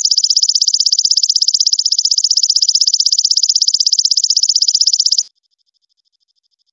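Belalang emas (golden katydid) singing a loud, high, rapid and very even pulsed trill that cuts off suddenly about five seconds in.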